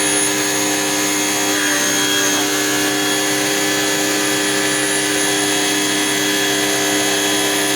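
Drain-cleaning machine running steadily at a constant pitch, a mechanical hum with several held tones.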